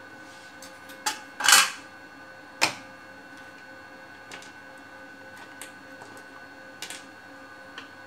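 Hard parts and tools clattering and knocking on a workbench as a power supply's removed cover is set down and a screwdriver picked up: a few sharp knocks, the loudest and most rattling about a second and a half in, then a few light ticks.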